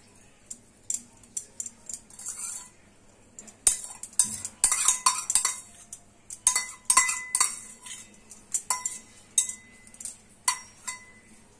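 Metal spoon scraping and clinking against a small metal bowl while spooning fried onions out of it, in irregular strikes, several of which leave the bowl ringing briefly; the clatter is busiest in the middle.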